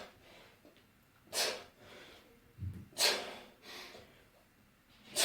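A person breathing out hard in short, sharp puffs, three of them about a second and a half to two seconds apart, in rhythm with goblet squat reps. A brief dull low thump comes a little under three seconds in.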